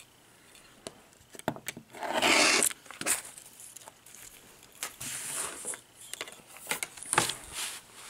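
Rustling of trimmed strips of fabric with half-square-triangle paper stitched to them, lifted and cleared off a cutting mat, in three short bursts with a few light clicks and taps in between.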